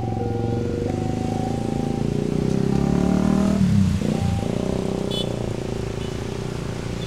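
Level-crossing alarm sounding two alternating electronic tones, stopping about a second and a half in, over motorcycle engines. The engines grow louder, and one passes close around four seconds in with a quick drop in pitch, followed by a steady engine drone.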